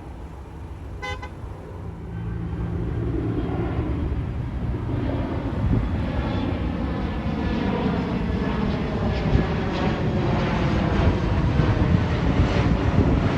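Jet airliner on approach passing overhead, its engine noise growing steadily louder. A short car horn toot sounds about a second in.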